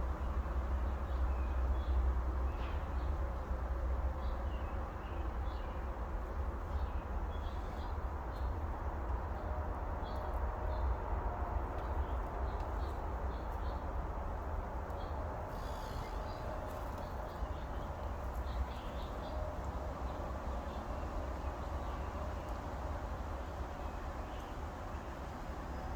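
Faint short bird chirps scattered through a steady low rumble.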